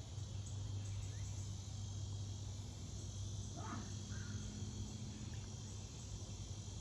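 Insects, crickets, trilling steadily in the background over a constant low hum.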